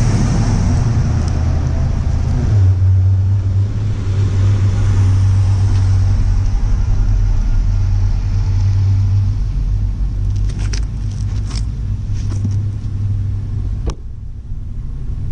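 A steady, loud low hum of a running motor, with a few sharp metallic clicks and taps a few seconds before the end.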